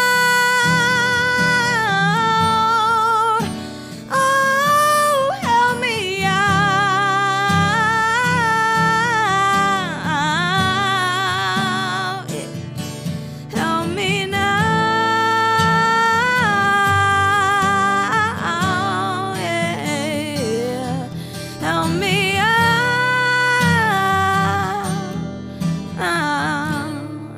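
Female vocalist singing long held notes with a wide vibrato and sliding vocal runs, over a strummed acoustic guitar.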